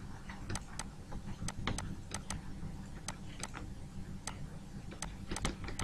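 Irregular light clicks and taps of a stylus on a tablet screen as a word is handwritten, over a faint low steady hum.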